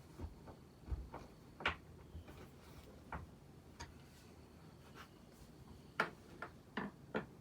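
Hunter Beacon Hill ceiling fan running on medium speed with a quiet steady background, broken by about ten light ticks and clicks at irregular spacing. The fan wobbles slightly because one blade is out of line.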